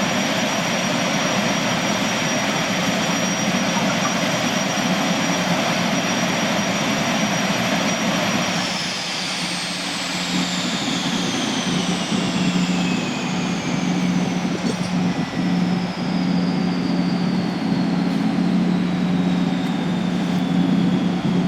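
Allison 501-KF gas turbine on a Boeing Jetfoil running with a steady high whine, then shutting down about eight seconds in: the whine falls slowly in pitch as the turbine spools down. A steady low hum continues underneath.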